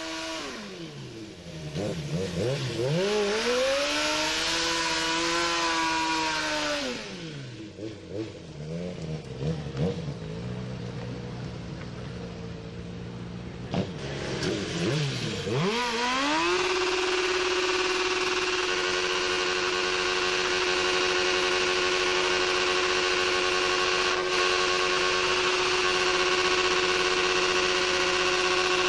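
Motorcycle engine revving for a burnout: the note drops and climbs back up twice, then just past halfway it is held at a steady high pitch to the end while the rear tyre spins in smoke.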